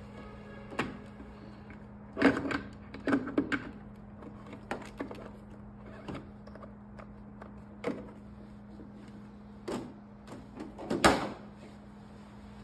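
Hard plastic knocks and clicks as a diode laser machine's handpieces are handled and seated in their holders and its side compartment door is shut, the loudest knock near the end, over a steady low hum.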